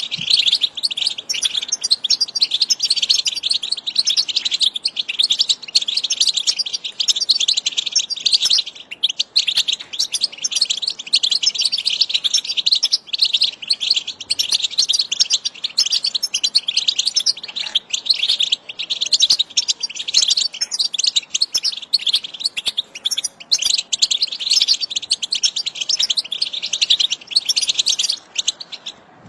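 Female European goldfinches singing: a continuous, rapid high twittering of chirps and trills without pause.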